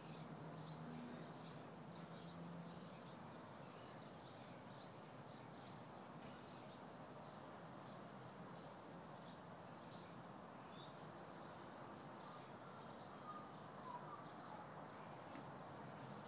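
Faint outdoor background: a steady hiss with short, high animal chirps repeating about twice a second.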